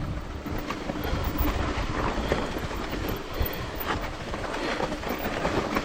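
Mountain bike tyres rolling over a tight, loose gravel trail, with steady rumble, scattered rattles and clicks from the bike, and wind on the microphone.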